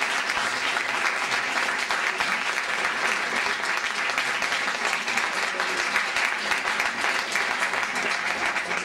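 Audience applauding: dense, steady clapping that keeps up throughout.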